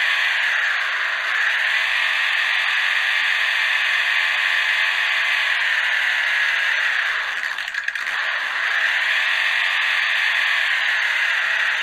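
Whine of a 1:32 Orlandoo Hunter OH32P02 RC crawler's stock electric motor and gears, heard up close from a camera mounted on the car, rising and falling in pitch with the throttle. It dips about a second in and drops lower around seven to eight seconds, then picks up again.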